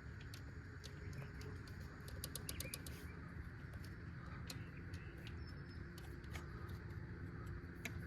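Faint, irregular light clicks and ticks over a steady low hum.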